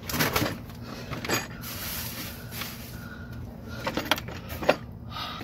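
Sharp clicks and knocks of tools or parts being handled under a car during an oil change, over a steady low hum. There is a cluster at the start, one about a second in, several near four seconds, and the loudest just before the end.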